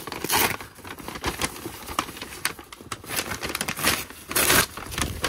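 Kraft paper envelope being torn open by hand: paper crinkling and rustling, with two longer, louder rips, one about half a second in and one near the end.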